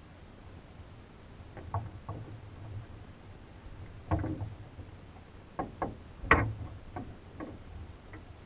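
Scattered knocks and thumps inside a PIK-20 glider's cockpit, carried through the hollow fibreglass fuselage, about eight over several seconds with the loudest a little after six seconds in: the pilot moving about in the cockpit after landing.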